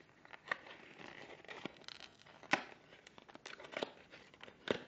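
Trading card pack wrapper being torn open and crinkled by hand, a string of irregular sharp crackles and rustles, the loudest about halfway through and near the end.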